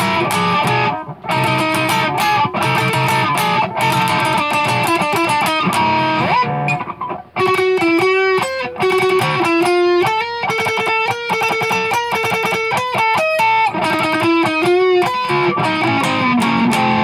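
Electric guitar through an amp with chorus and flanger effects playing fast lead runs of single notes, with a brief break about seven seconds in. Near the end a note slides down in pitch.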